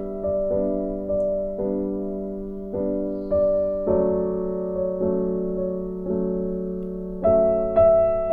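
Background piano music: slow sustained chords, each struck and left to fade.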